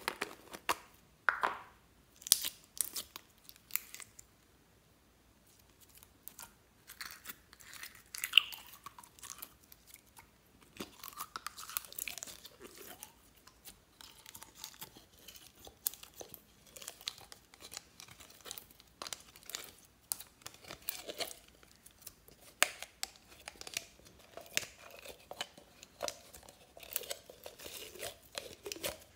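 Thick, stringy clear slime full of foam beads being poured and squeezed out of a plastic bottle, with dense sticky crackling and popping as it stretches and peels away. In the first few seconds the bottle's plastic cap gives a few sharp clicks as it is handled.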